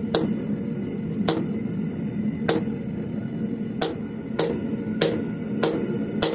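Hand hammer striking a red-hot carbon-steel bar on an anvil while marking and forging the set-down for a knife handle: eight sharp blows, about a second apart at first, then quicker, about one every 0.6 s, over a steady low hum.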